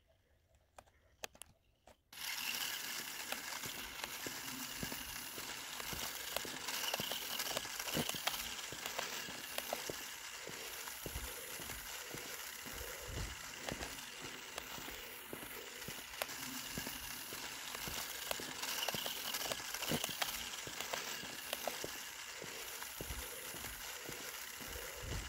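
After about two seconds of near silence with a few faint clicks, a toy-grade RC off-road car starts driving over rough ground: a steady crackling and crunching of its tires and running gear, full of small ticks and rattles.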